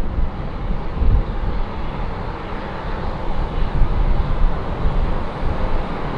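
Boeing 737-800 jet engines (CFM56-7B turbofans) running: a steady rushing noise with a deep rumble underneath.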